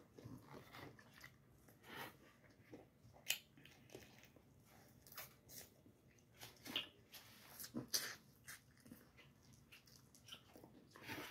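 Faint, scattered mouth clicks and smacks of a person sucking and chewing the last meat off fried chicken wing bones and licking her fingers.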